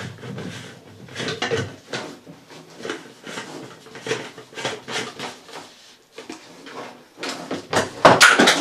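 Plastic clicks, knocks and rattles from handling a Buildskill BPS2100 HVLP electric paint sprayer and its plastic paint container, with the sprayer switched off. The knocks come thicker and louder near the end, as the power cable and packaging on the desk are moved.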